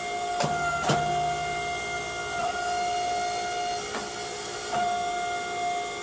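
Forge running at welding heat with a steady hiss and a steady whining tone, while tongs clink a few times against the billet as it is turned in the fire.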